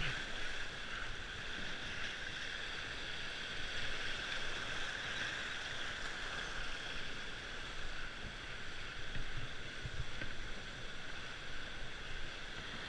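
Steady rush of whitewater rapids around a slalom canoe as it is paddled through the course, with a few faint low thumps from the boat and paddle.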